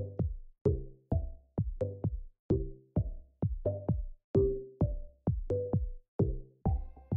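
Electronic music with a steady drum-machine beat, about two beats a second, and short pitched notes between the beats.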